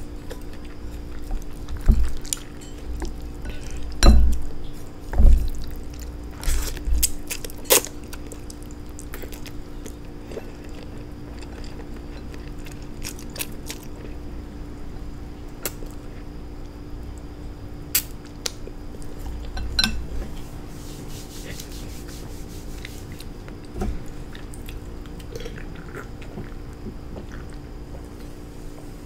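Eating instant noodles: scattered clicks of a utensil against a bowl, with a few louder knocks in the first several seconds, over a steady low hum.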